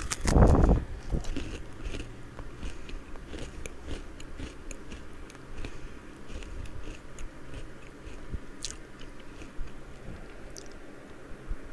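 A person bites into a whole Cherry Cola Oreo sandwich cookie close to a headset microphone, with one loud crunch about half a second in. Then comes chewing, with many small crunches and clicks.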